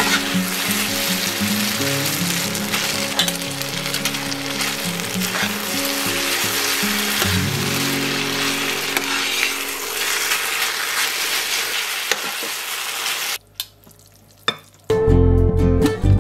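Food frying and sizzling in a pan, with quiet background music underneath. The sizzle cuts off about thirteen seconds in, and after a brief near-silence, acoustic guitar music starts.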